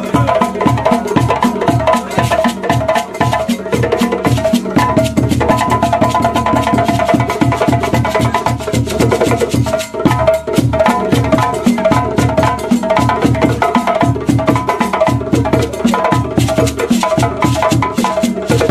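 Traditional West African hand drumming on djembe-type drums, many strokes in a dense, driving rhythm, with a sharp wood-block-like knock cutting through and a steady high tone held above the drums.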